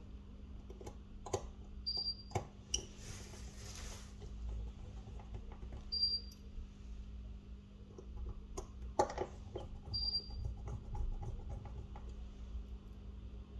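Scattered light clicks and taps of small tools and phone parts being handled on a repair bench, a little busier about nine seconds in, over a steady low hum. A short high beep recurs about every four seconds.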